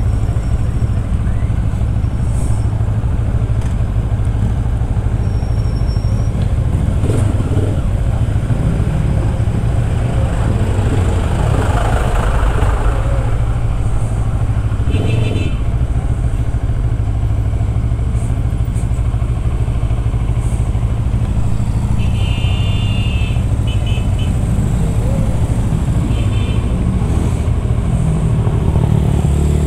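Motorcycle engine running steadily at low speed, heard from the bike itself, with other motorcycles around. A few short high-pitched beeps sound about halfway through and again later.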